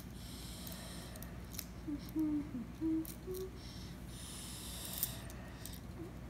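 Small plastic kit parts being handled and fitted together by hand: a few sharp plastic clicks and stretches of scraping and rubbing.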